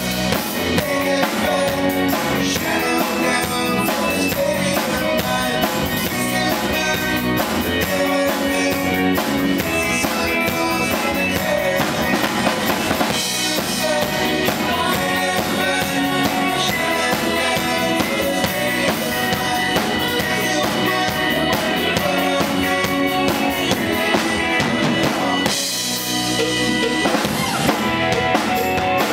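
Live rock band playing a medley: drum kit, electric bass and keyboard, with sung vocals over them. The low end drops out briefly near the end.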